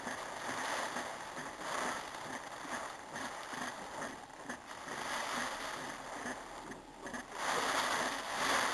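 Heavy rain and wind of a rainstorm: a steady rushing noise that swells and eases, rising to its loudest near the end.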